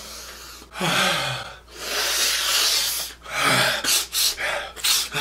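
A man smelling a slice of pizza: long, heavy breaths drawn in and let out, with a short hum a little after the middle and a few quicker breaths near the end.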